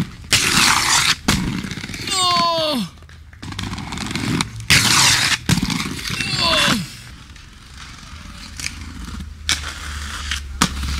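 Inline skates grinding along a concrete ledge twice, each grind a loud scrape lasting about a second and followed by a short falling shout.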